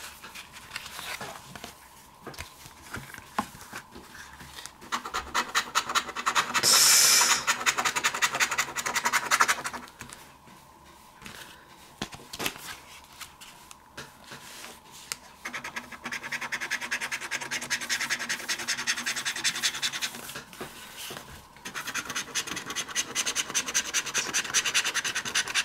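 Scratch-off lottery ticket being scratched, its coating rasped away in quick repeated strokes. The scratching comes in spells: heavy from about five to ten seconds in, lighter for a few seconds, then heavy again through the end.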